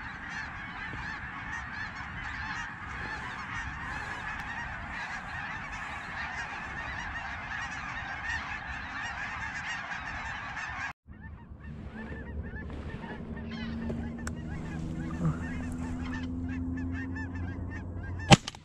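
A large flock of geese honking and calling overhead in a constant din. The sound breaks off for an instant about eleven seconds in, and near the end a single shotgun shot rings out, the loudest sound.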